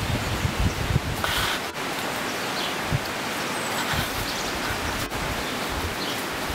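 Steady outdoor background hiss with rustling, and a few low bumps in the first second.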